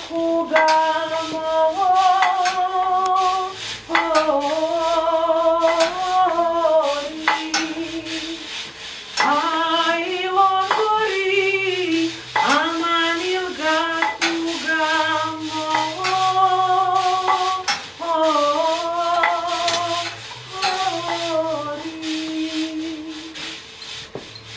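A woman's voice singing a slow, ornamented melody without words being spoken, in phrases of a few seconds with long held notes that waver in vibrato. A faint low note sounds underneath at times.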